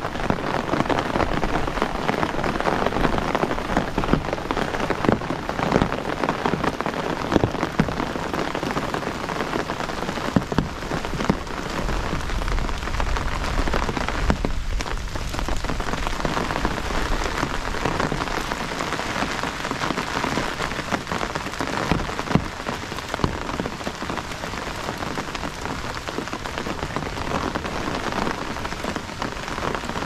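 Heavy rain falling steadily on a tent and the ground around it, with the sharp taps of big drops throughout. A low rumble runs for a few seconds about halfway through.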